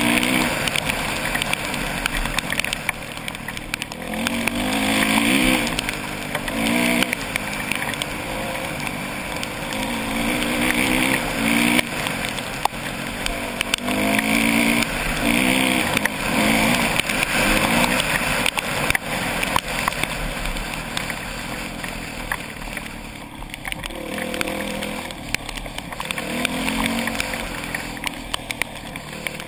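Dirt bike engine accelerating hard again and again, its pitch rising through each gear and dropping back at every shift.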